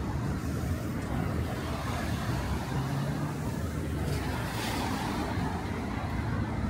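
Road traffic running steadily, a low engine hum under the hiss of tyres, with a vehicle passing and swelling briefly about four seconds in.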